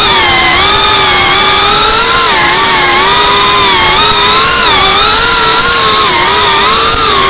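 GEPRC Cinelog 35 FPV cinewhoop's brushless motors and ducted propellers whining loudly, heard from the camera on board the drone, the pitch wavering up and down with throttle as it manoeuvres.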